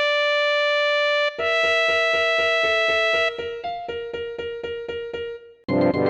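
Homemade, electronically synthesized emergency-alert-style alarm tones: a long steady tone, then a held two-note tone over a pulsing beat of about four pulses a second. It drops out briefly near the end before a loud new burst of tones.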